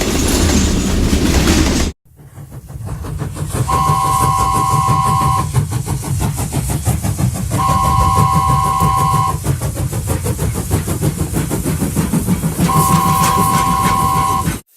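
Train sound effect: a running train rumbling with rhythmic wheel clicks, and three long blasts of a two-note train whistle at even intervals. A different train sound cuts off abruptly about two seconds in.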